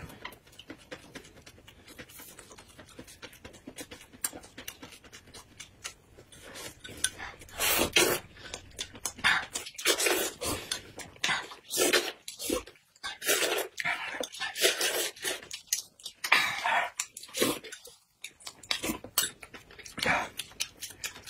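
Close-up eating sounds: slurping and chewing of kiwi fruit and a spooned drink. It is faint at first, then comes in loud short bursts from about seven seconds in.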